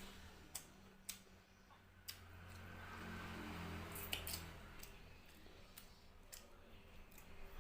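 Eating sounds: scattered small crisp clicks and crunches of chewing fried carp, a few each second, over a steady low hum.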